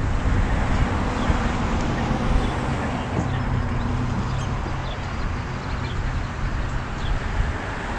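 Steady outdoor noise with a low hum, likely wind on the microphone and distant traffic, with a few short bird chirps scattered through it.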